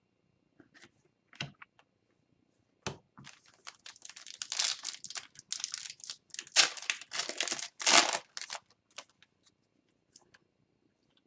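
Foil wrapper of a hockey card pack being torn open and crinkled. A few light clicks and rustles come first, then a dense run of crinkling and tearing through the middle that tapers off into a few clicks.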